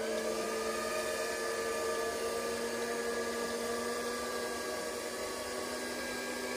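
LGB G-scale model electric locomotive running on garden-railway track: a steady motor-and-gear whine with a low hum underneath.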